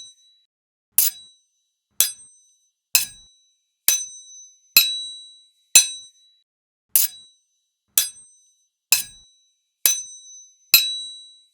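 Two sword blades striking each other in single clashes, about one a second, eleven in all. Each clash gives a bright metallic ring that dies away quickly, some ringing longer than others.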